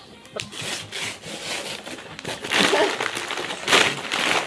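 Wrapping paper being torn and crinkled off a gift, a run of rips and rustles with the loudest tears about two and a half and nearly four seconds in.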